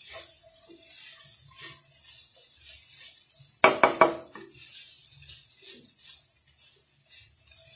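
A spatula stirring and scraping a mash of dried fish and tomato around a nonstick frying pan, with soft scrapes and taps throughout. About halfway through there is a quick run of four loud, ringing knocks of the spatula on the pan.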